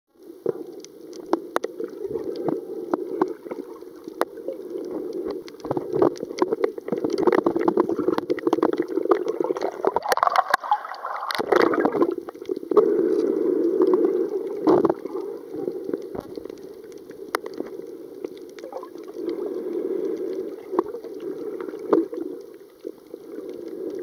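Muffled water noise picked up by a camera held underwater, a steady dull rush scattered with many sharp clicks and crackles. It grows brighter and louder for a couple of seconds around the middle.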